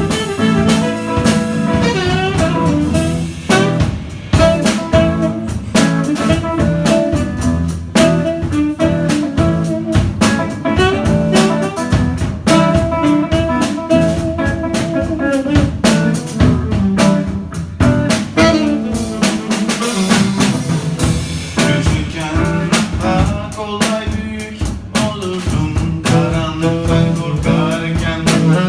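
Live jazz improvisation: a saxophone playing held and sliding melodic lines over guitar, with a drum kit keeping time with frequent sharp strokes.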